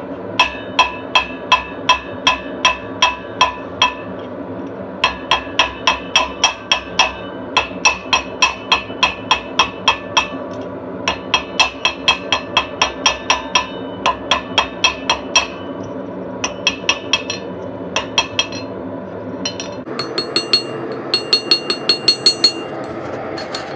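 Blacksmith's hammer striking hot steel on an anvil in runs of about three blows a second, each blow leaving a bright metallic ring, with short pauses between the runs. A steady rush runs underneath, and the ring turns higher and brighter near the end.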